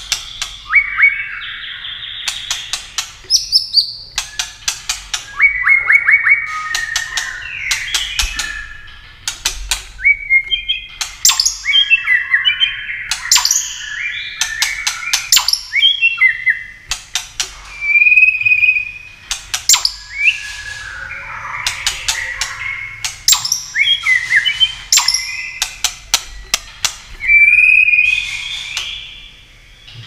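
White-rumped shama singing a near-continuous run of loud, varied whistled phrases with rising and falling notes, broken by many sharp clicks. The bird is fired up and singing its competitive fighting song.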